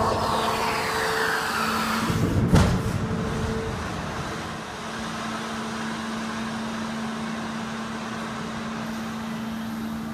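Airbus A330 main landing gear extending under hydraulic power during a gear-swing test. A falling whine in the first two seconds, a heavy clunk about two and a half seconds in, then a steady hum.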